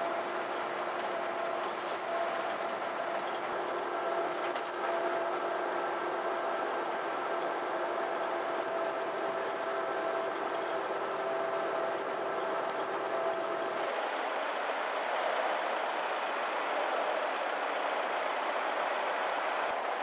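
Steady cabin noise inside an Isuzu Gala highway coach: a hum with a faint wavering whine. About fourteen seconds in it changes abruptly to a steady outdoor hiss with less low hum.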